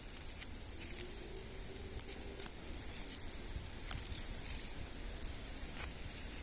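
Birch bark being pulled and torn off a trunk by hand: dry crackling and rustling, with a few sharp snaps scattered through.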